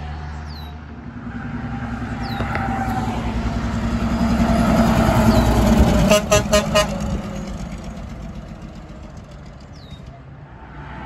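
Kenworth T802SF truck's diesel engine and tyres growing louder as it approaches and passes, then its twin Grover 2001 air horns sounding four quick short blasts about six seconds in, after which the truck fades away.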